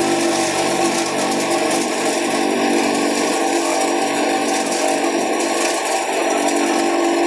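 Homemade chopper-grinder machine running steadily at speed, a loud mechanical hum over a rushing noise as leaves are fed into it. Its tone changes about a second in and returns near the end.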